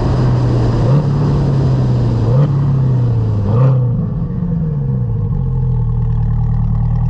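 2020 Corvette C8's mid-mounted 6.2-litre V8 running as the car slows. The engine note jumps up twice, a second or so apart, with quick downshifts of the dual-clutch gearbox, and sinks after each. The road and wind rush fades out about halfway through.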